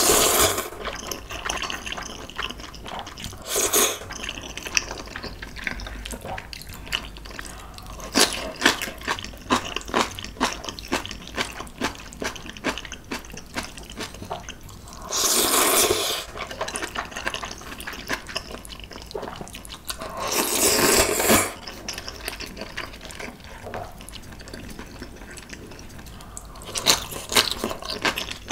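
Close-miked slurping of clam kalguksu noodles, several long wet slurps, one near the start, one around four seconds, one about fifteen seconds in and one about twenty seconds in. Between them come constant small wet chewing and mouth clicks.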